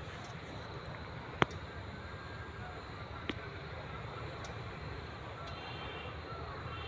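Outdoor background noise: a steady low rumble with a faint hiss, broken by two sharp clicks, the louder one about a second and a half in and a softer one about three seconds in.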